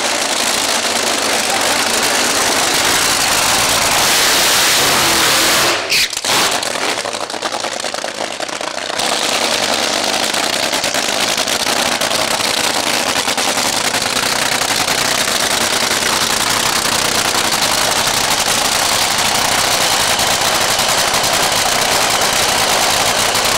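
Top Fuel dragster's supercharged nitromethane V8 running at the start line: loud and steady, with no clear pitch. The sound cuts out abruptly for a moment about six seconds in, then carries on.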